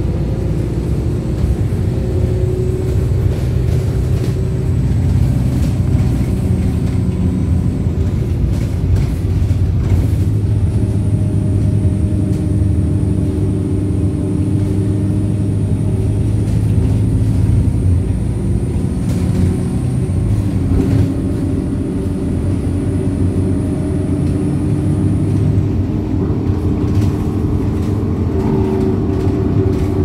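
Wright StreetLite bus heard from inside the saloon while running at speed: a steady engine, drivetrain and road rumble whose tones shift up and down. A few knocks and rattles come through.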